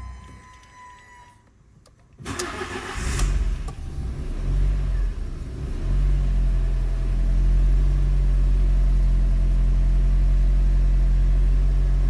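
Fiat 500 1.4 16v four-cylinder petrol engine cranked on the starter about two seconds in. It catches and revs briefly, then settles into a steady idle.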